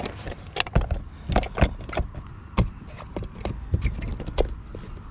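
Irregular clicks and knocks of a twin suction-cup kayak loading roller being handled, pressed and clamped onto a car's side window glass.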